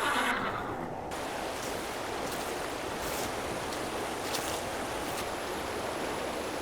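A steady, even rushing noise of outdoor nature ambience, as from wind or running water in the mountains.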